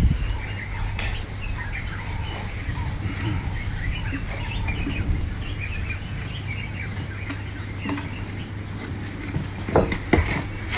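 Small birds chirping in short, scattered calls over a steady low hum, with a few faint clicks.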